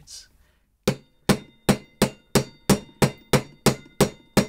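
Hammer tapping a new wheel bearing into a Suzuki GSF 650 Bandit's front wheel hub, driving it home the old-school way instead of with a press. About a dozen sharp metallic strikes, evenly spaced at roughly three a second, start about a second in, and each rings briefly.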